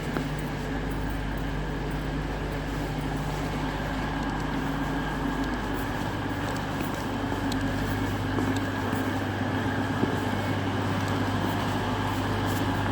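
Diesel train's engine running at a steady idle, a constant low hum whose low note drops in pitch about five and a half seconds in.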